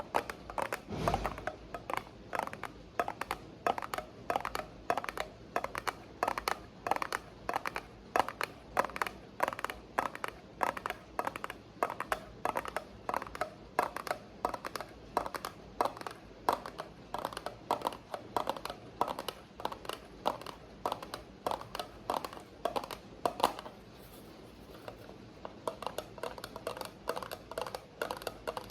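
Quick, uneven tapping, several taps a second, over a steady hiss of rain. A low thump comes about a second in, and the tapping breaks off for about two seconds near the end.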